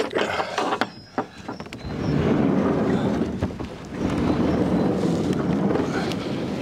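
Latch and handle clicks on a large wooden barn door, then a long rough scrape as the heavy door is dragged open, easing briefly about four seconds in before going on.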